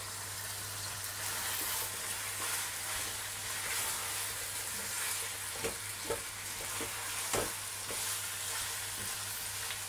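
Chicken pieces and sliced onion sizzling steadily in hot oil in a stainless steel pot as they are browned, with the pieces being stirred. Several short knocks and scrapes of the stirring utensil against the pot come in the second half.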